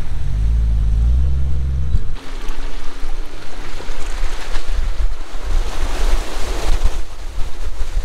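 A vehicle engine runs at low, steady revs. About two seconds in, the sound switches to tyres sloshing and splashing through a muddy, water-filled rut on a blue Jeep Wrangler, with wind rushing over a camera mounted low on its side.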